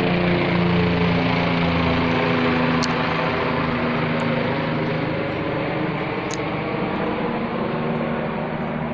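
Low-flying aircraft droning overhead: a steady engine hum whose pitch shifts slightly in the first few seconds and then holds, slowly getting fainter.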